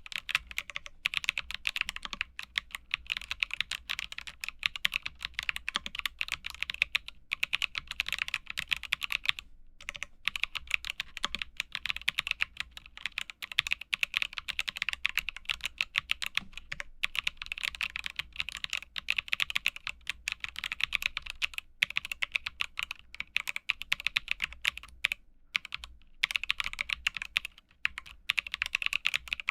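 Continuous fast typing on a MonsGeek M1 aluminium mechanical keyboard with WS Heavy Tactile switches: a dense run of key clicks and thocks, with a couple of brief pauses.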